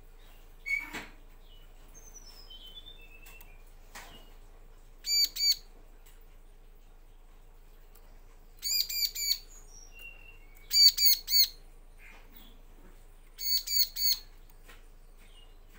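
Bar-winged prinia (ciblek) calling in short bursts of two to four sharp, high notes, several times, with a few softer, falling chirps between them. There are two light knocks, about one second and four seconds in.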